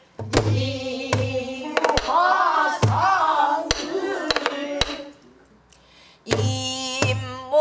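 Pansori singing in a woman's voice, with long wavering held notes, accompanied by her own buk barrel drum: deep booms from the palm on the drumhead and sharp clacks from the stick on the wooden body and rim. There is a brief lull about five seconds in before the drum and voice come back.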